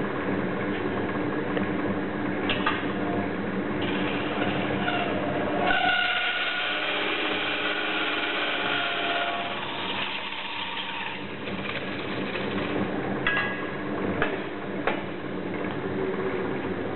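Lathe running during metal spinning, with a spinning tool pressed against a rotating sheet-metal blank. The steady machine sound shifts about six seconds in to higher, wavering whining tones as the tool works the metal, with a few sharp clicks.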